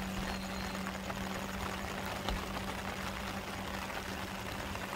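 A steady, unchanging low hum, like an idling engine or motor, over an even background hiss.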